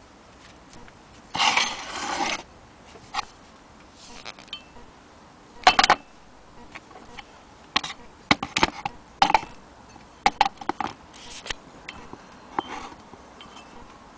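Irregular metallic clinks and knocks, with bursts of handling noise about a second and a half in and again around six seconds in, as the cast-iron hand-crank wheel of a Willcox & Gibbs sewing machine is handled by its crank handle on its wooden base.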